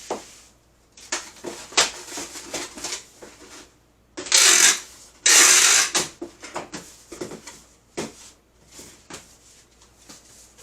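Cardboard shipping boxes and sticker sheets being handled: rustling, light knocks and clicks, with two loud rasping bursts, each under a second, about four and five seconds in.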